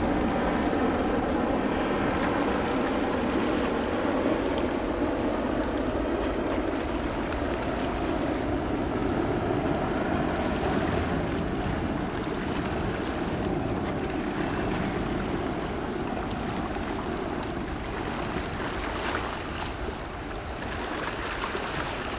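Military jet aircraft passing over: a steady rumble from the jet engines that slowly fades as they move away.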